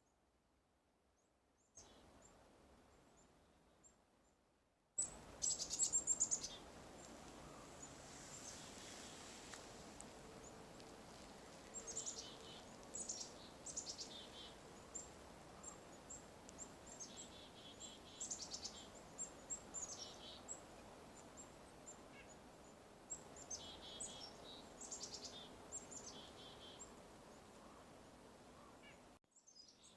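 Chickadees calling again and again, high chattering calls in clusters, over a faint steady hiss. The calls start about five seconds in.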